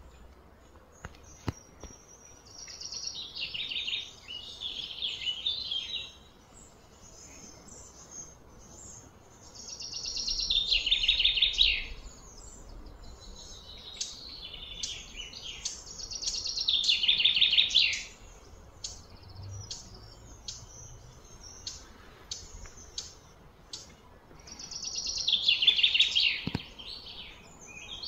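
A bird singing: four loud bouts of fast, trilled chirps, each a couple of seconds long, with scattered short chirps between them.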